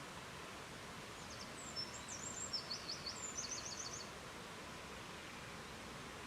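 Steady rushing noise of a river, with a small bird singing a quick run of high chirps and trills from a little under two seconds in until about four seconds.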